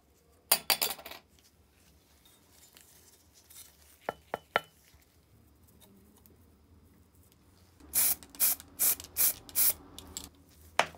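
Small metal parts of an antique pepper grinder clinking and scraping together as they are handled: a cluster of clicks about half a second in, three sharp clicks around four seconds, a run of about six quick clacks between eight and ten seconds, and a last click near the end.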